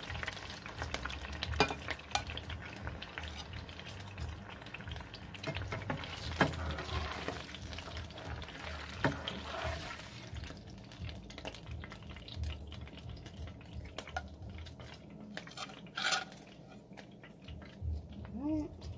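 Hot oil sizzling and popping in a frying pan around pieces of frying red snapper, with a metal spatula scraping and clicking against the pan a few times as the fish is lifted out. The sizzle dies down about halfway through.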